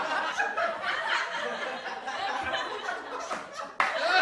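People laughing and chuckling, with some voices mixed in. The sound breaks off abruptly near the end and louder voices start at once.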